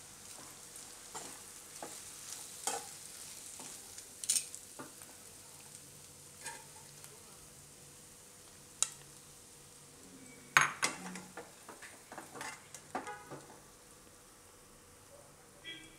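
A steel spoon scraping and tapping in a nonstick kadai as the stir-fried cabbage and corn is scooped out into a glass bowl, with a faint sizzle from the still-hot pan. A sharp clink comes about ten and a half seconds in, followed by a few lighter taps.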